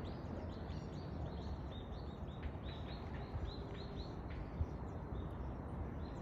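Outdoor ambience of high, rapid chirping, about three short calls a second, over a steady low background noise. There is a single small knock about four and a half seconds in.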